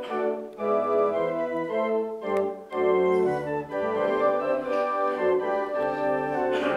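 Church organ playing the introduction to a hymn, held chords moving over a changing bass line.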